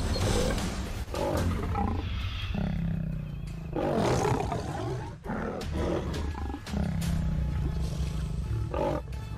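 Lion growling, a run of long rough growls with short breaks between them.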